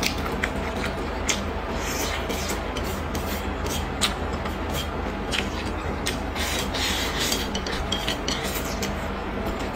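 Close-miked chewing of stir-fried green pepper, with many short crisp clicks from the mouth.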